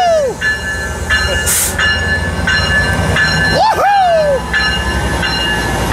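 Amtrak EMD F59PHI diesel locomotive's bell ringing in repeated strokes over the low rumble of its idling engine, the bell signalling that the train is about to depart.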